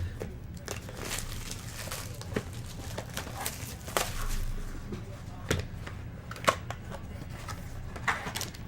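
Trading-card packaging being torn open and crinkled by hand: scattered small rustles and clicks over a steady low hum.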